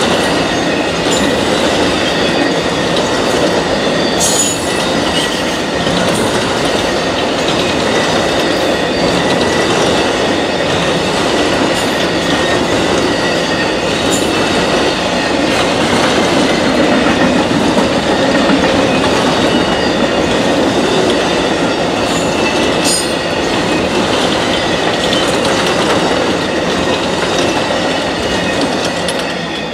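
Amtrak Auto Train autorack cars rolling past at speed: a steady, loud rumble of steel wheels on rail with a thin, steady high whine over it and a few sharp clicks. The noise starts to fall away near the end as the last car goes by.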